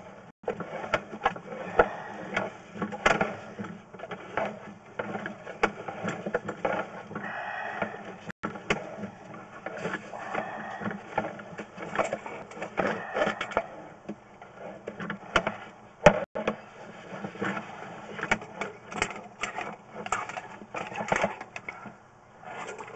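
Sewer inspection camera's push cable being pulled back through the drain line onto its reel, with irregular clicks and rattles over a steady low hum.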